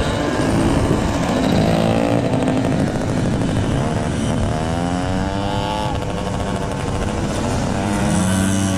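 Several small two-stroke Jawa 50 Pionýr-class race motorcycles riding past. Their engines rev up and down, with one clear climb in revs about halfway through.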